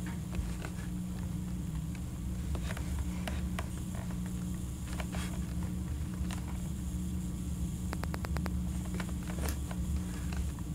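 Fingertips tapping on a tablet's touchscreen keyboard while typing, short scattered taps with a quick run of ticks about eight seconds in, over a steady low hum.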